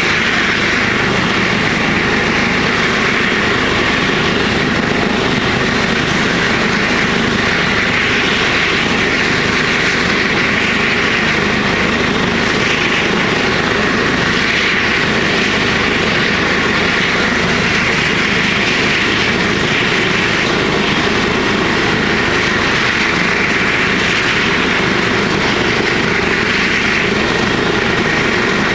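Trauma helicopter's engine and rotor running steadily and loudly, the level holding even throughout.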